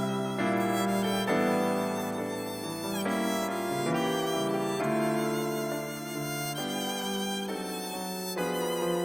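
Violin music: slow, sustained bowed notes with vibrato, one note changing to the next every second or so.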